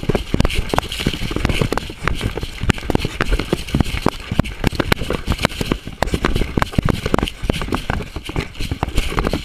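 A coonhound running with a camera on its collar: rapid, irregular knocks and crackling from its paws, brush and the camera rubbing as it moves, over a steady hiss.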